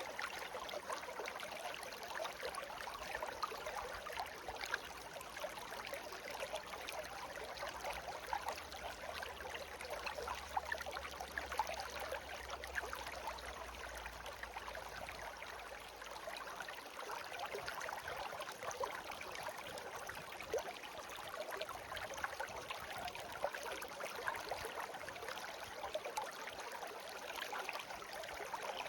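Shallow stream babbling and trickling steadily over stones, a continuous gurgle of small splashes.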